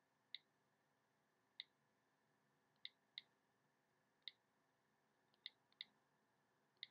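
iPhone keyboard clicks, one short click for each key tapped or flicked on the Japanese ten-key keypad. There are about eight clicks at uneven intervals, two of them in quick pairs, over near-silent room tone.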